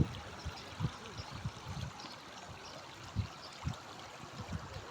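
River water flowing over a rocky bed with a steady rushing, broken by a few short low thumps that sound like wind or handling on the microphone.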